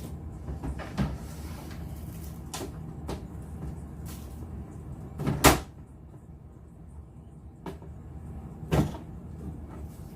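Hard plastic crate parts being handled and set down: a few scattered knocks and clunks, the loudest about five and a half seconds in and another near the end.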